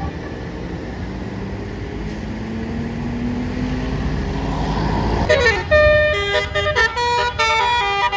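Bus engine running with its pitch rising slowly, then about five seconds in a basuri 'telolet' musical air horn blares a fast tune of short, changing notes.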